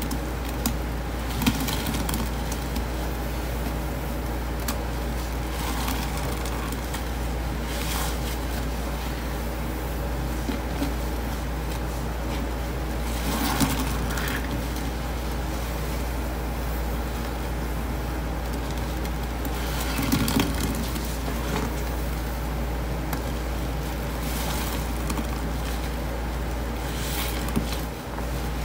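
Sponges soaked in thick blue cleaning-powder paste being squeezed and kneaded by gloved hands, giving a handful of wet squelches spread through the time over a steady low background hum.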